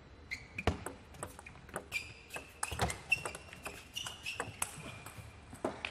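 Celluloid-free plastic table tennis ball clicking sharply and irregularly off bats and table during play, with short high squeaks from players' shoes on the sports floor in the middle of the stretch.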